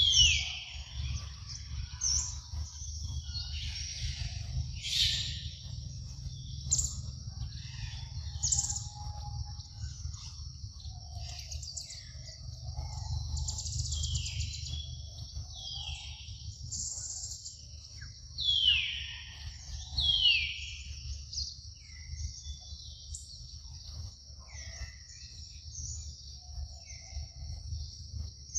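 Forest ambience: a steady high insect drone, with a bird calling repeatedly in short falling whistles. The two loudest calls come about two-thirds of the way through. A low rumble runs underneath.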